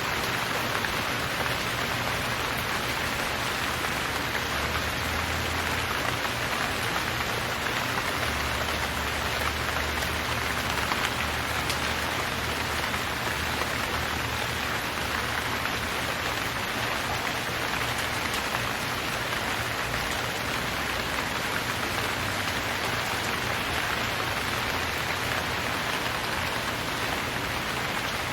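Steady rain falling and pattering on surfaces, an even rushing hiss with no breaks.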